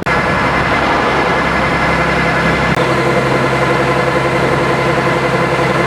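A large engine running steadily at a constant speed, a hum of several steady tones that starts abruptly.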